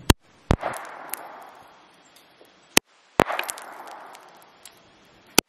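Three shots from a GSG 1911 .22 LR pistol, about two and a half seconds apart: one at the very start, one near the middle and one just before the end. Its mock suppressor is for looks only and does not muffle the shots. Each sharp crack is followed about half a second later by an echo that dies away slowly.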